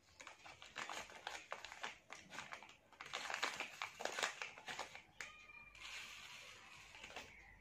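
Clear plastic packet of superabsorbent crystal powder crinkling and rustling in the hand while powder is scooped out of it, with a brief high squeak about five seconds in.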